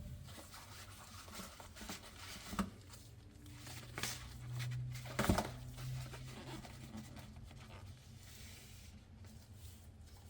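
Chocolate bar wrapper being handled and torn open: scattered rustles and crinkles with a few sharp clicks, over a steady low hum.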